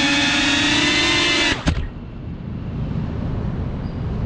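Small quadcopter drone's motors and propellers whining at a steady, slightly wavering pitch, then cutting off with a knock about a second and a half in as it lands on the pavement. After that, only a low background rumble remains.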